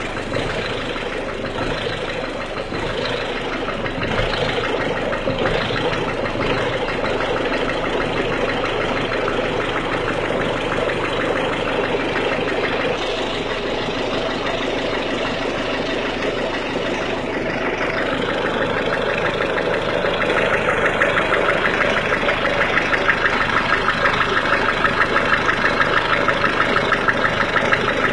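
1.6 HDi common-rail diesel engine idling cold with a fast, rhythmic clatter. This is the cold-engine knocking ('claquement à froid') the title is about. The clatter grows louder and more distinct about twenty seconds in.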